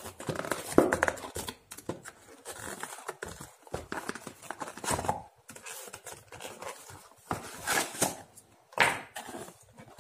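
Cardboard packaging being handled: card and paper scraping, sliding and rustling in irregular bursts as a small speaker is worked out of its fitted card tray, with louder rustles about a second in and twice near the end.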